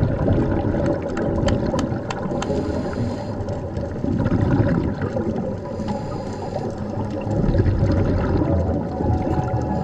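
Underwater sound heard through a camera housing: a steady, muffled rumble of water with a few sharp clicks. Twice it swells into a gurgling rush of a scuba diver's exhaled bubbles.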